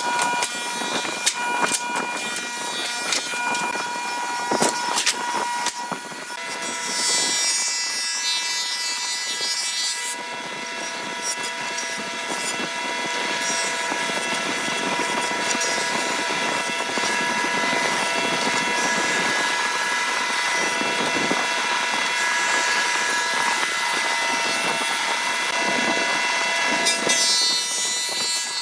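Old cast-iron jointer running, its cutterhead planing a weathered pallet board fed across it: a steady whine over a hiss of cutting. The first few seconds hold sharp knocks of wooden boards being handled.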